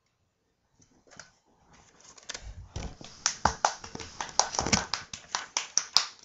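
Handling noise: after a near-silent start, a quick irregular run of sharp crackles and clicks begins about two seconds in, with a couple of dull thumps among them.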